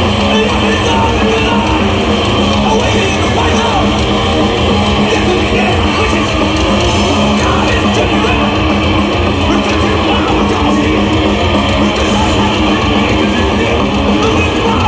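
Thrash metal band playing live at concert volume: heavily distorted electric guitars over drums, dense and unbroken, heard from the audience in an arena.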